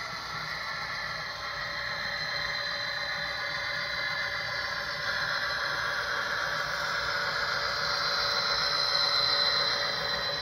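Model FP45 diesel locomotive and its passenger cars running along the track: a steady whir and rattle of the motor and wheels on the rails, growing louder as the train passes close by and loudest near the end.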